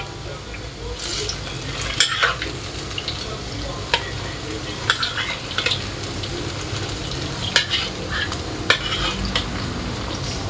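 Battered cabbage-and-mustard-green fritters (bakwan) deep-frying in hot oil in a wok, with a steady sizzle. A metal spatula scrapes and knocks against the wok several times as the fritters are pushed and turned, with sharp knocks about two, four, seven and a half and nine seconds in.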